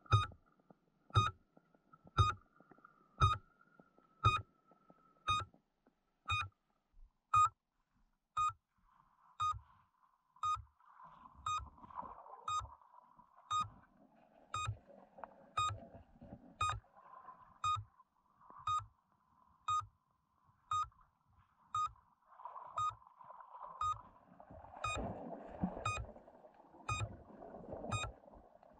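Electronic beeper sounding one short beep about once a second, steady throughout, with a faint rustling noise between the beeps that grows near the end.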